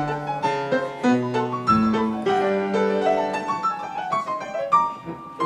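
Grand piano playing a brisk passage of separate struck notes and chords, moving up and down in pitch.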